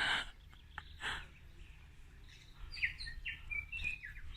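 New Zealand kākā calling: two short harsh rasps about a second apart, then a quick run of high chirping notes.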